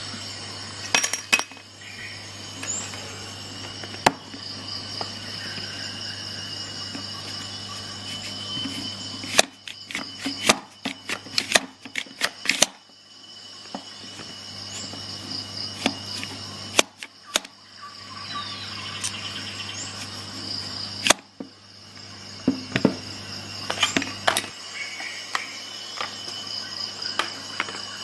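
Plastic and metal clicks and clacks from handling the staple magazine of a Parkside PHET 15 B1 electric stapler-nailer, with a quick run of clicks about a third of the way in and scattered single knocks later. A steady high-pitched whine and low hum run underneath.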